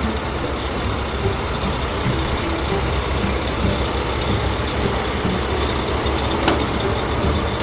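Motor vehicle engine running steadily with a low rumble, with a brief hiss and a click about six seconds in.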